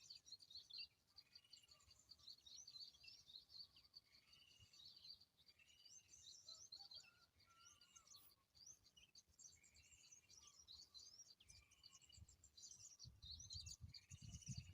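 Faint chirping and twittering of small birds, with a short arched call note repeated about once a second in several runs.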